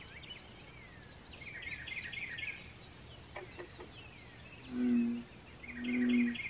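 Songbirds chirping at dawn in quick bursts of short high notes. Near the end a frog gives a deep call twice, each note about half a second long and about a second apart, louder than the birds.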